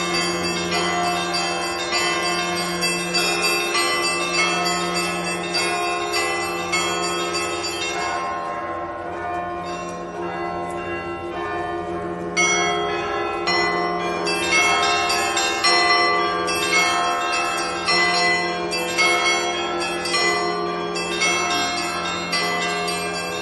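Russian Orthodox festal bell ringing (zvon): the deep bass bell is struck at a steady beat while smaller bells are chimed in quick patterns over it. About a third of the way in the small bells drop away for a few seconds, then come back in suddenly.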